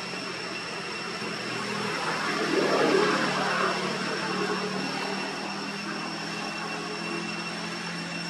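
Steady outdoor background drone with two faint high steady tones, swelling into a louder rush of noise about two to four seconds in.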